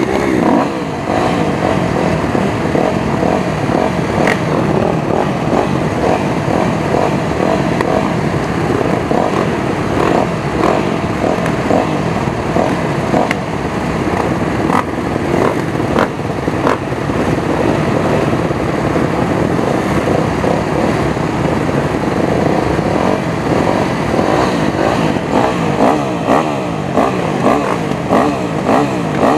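A crowd of motocross dirt bikes running together at idle, with throttles blipped and revved now and then.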